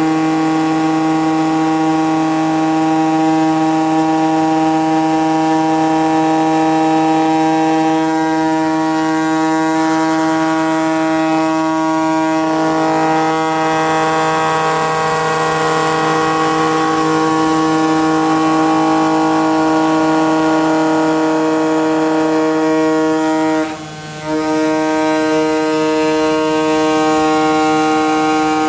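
CNC cutting machine running steadily while cutting 3.5 mm asbestos sheet: a constant hum of several steady tones over a light hiss, with a brief dip about 24 seconds in.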